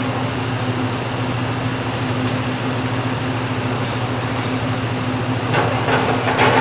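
Steady hum and rush of commercial kitchen ventilation: exhaust-hood fans running over the cooking range. A few knocks and clatter of pans and utensils come in near the end.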